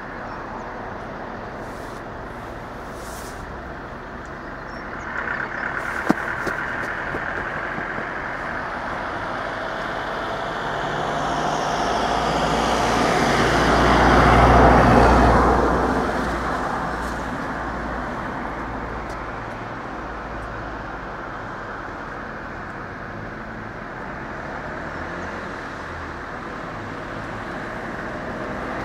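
A motor vehicle passing by: a steady rumble that builds to its loudest about halfway through and then fades away, over a constant engine hum. A single sharp click about six seconds in.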